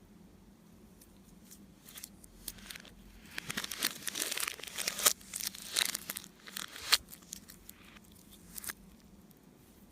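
Slime being stretched and pulled apart by hand, crackling and tearing, with a few sharp snaps. It is busiest in the middle and dies down near the end.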